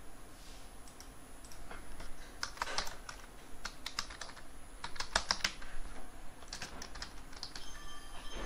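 Computer keyboard typing in a few short bursts of keystrokes with pauses between.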